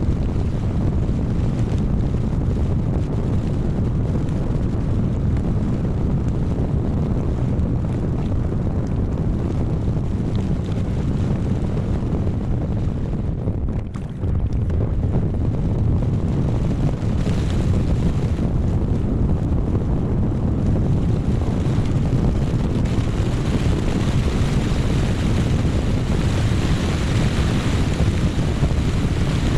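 Strong gusty storm winds buffeting the microphone, making a heavy, steady rumble, with a hiss that grows stronger in the last third.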